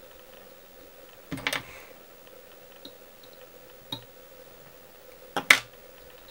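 Sharp clicks and taps of fly-tying tools being handled at the vise: a quick cluster about a second and a half in, a light tick near four seconds, and the loudest double click near the end, over a faint steady hum.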